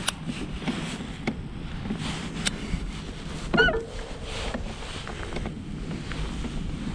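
Wind buffeting the microphone over water sloshing against a plastic kayak hull, with scattered light clicks. A little over three and a half seconds in, a short wavering pitched call stands out, the loudest moment.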